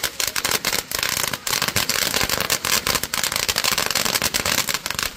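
A ground fountain firework crackling: a dense, rapid run of sharp pops and snaps from its crackling stars, which thins out suddenly near the end.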